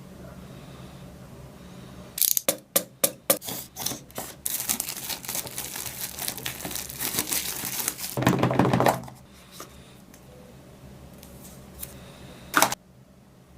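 Packaging being opened: plastic wrapping crinkling and tearing, first as a run of sharp crackles, then denser crackling and a louder rustle about eight seconds in. A single sharp click comes near the end.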